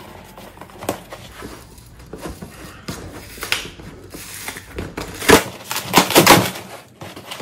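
Cardboard shipping box being cut and torn open: light scraping and cutting at the taped seam, then several loud rips of cardboard about five to six and a half seconds in.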